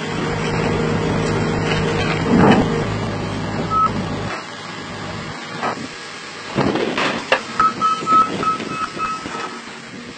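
A heavy machine's engine running steadily, then cutting off about four seconds in. This is followed by a few sharp metallic knocks and a quick series of short high beeps.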